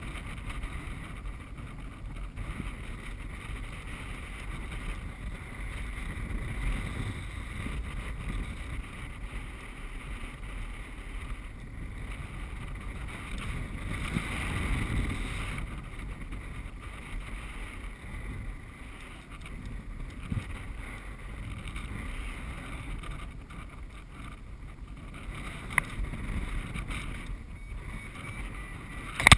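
Airflow buffeting a paraglider pilot's camera microphone in flight: a steady low rumble that swells and eases, loudest about halfway through. There are a couple of light knocks near the end.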